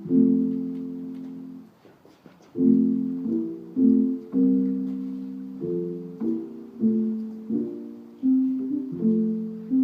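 Keyboard playing a slow tune in low chords, each struck and left to fade. The first chord dies away, and after a short gap about two seconds in, new chords follow roughly every half second or so.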